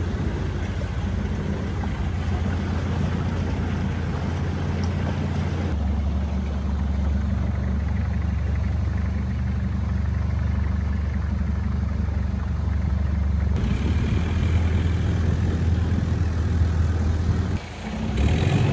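Long-tail boat's inboard engine running steadily under way: a loud, low drone whose tone changes abruptly a few times.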